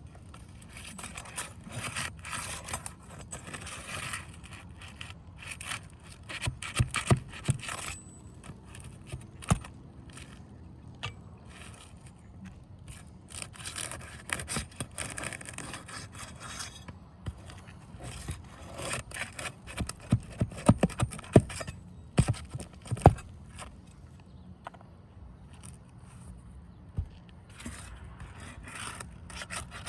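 Flat pry bar scraping and prying under roof shingles, breaking their seals and working nails up, in repeated scraping strokes with sharp clicks and knocks, the loudest clustered about 7 seconds in and again past the 20-second mark.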